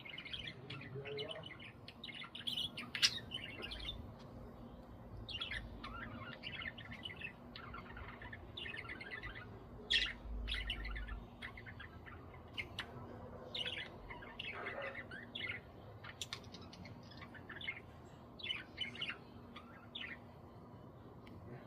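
Budgerigars chirping and chattering in short bursts.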